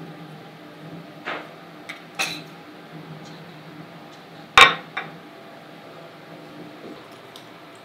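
Working kitchen sounds: a steady hum of kitchen equipment with a few sharp clinks and knocks of kitchenware, the loudest about four and a half seconds in.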